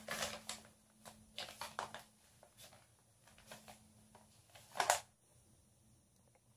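A sheet of paper rustling and crinkling as hands press and smooth it over a face coated in wet paint, in short irregular bursts. The loudest rustle comes about five seconds in as the sheet comes off the face, and the rest is quiet.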